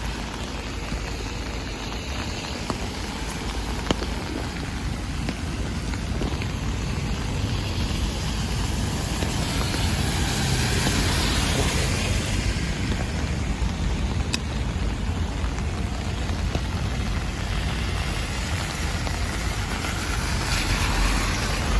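Steady rain on a city street, with cars passing on the wet road and their tyres hissing through the water. The hiss swells as a vehicle goes by about ten seconds in and again near the end.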